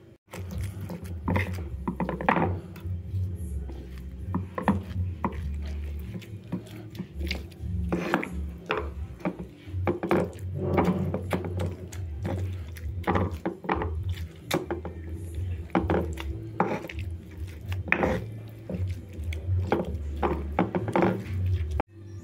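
Stone pestle (ulekan) pounding and grinding boiled tempeh, eggplant and grated coconut in a stone mortar (cobek). It makes repeated irregular knocks and scrapes of stone on stone, mashing the mix to a coarse paste. The knocking stops abruptly near the end.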